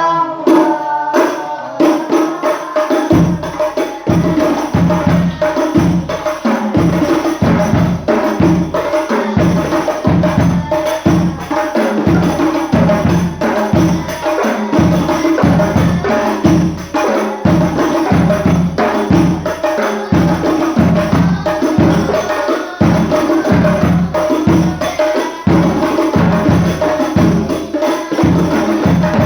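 Hadroh ensemble of rebana frame drums with a deep bass drum playing a steady, driving rhythm with jingling hand-drum strokes over it; the drums come in about three seconds in, after the tail of a sung phrase.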